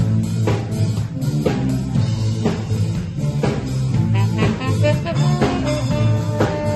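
Live band playing an instrumental passage: a drum kit keeps a steady beat of about two strokes a second under bass guitar and electric guitar. A saxophone holds a note near the end.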